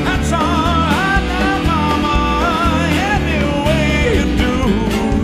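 Live rock-and-roll band playing, with the singer's wordless, wavering vocal line over strummed guitar, a walking bass and drums.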